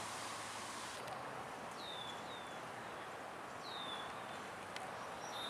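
Outdoor ambience with a steady hiss, over which a small bird gives short downward-sweeping chirps, two pairs about two seconds apart.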